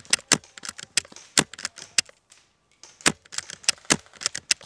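Airsoft guns firing: an uneven string of sharp snapping shots, several a second, some loud and close and others fainter. The shots stop briefly a little past two seconds in.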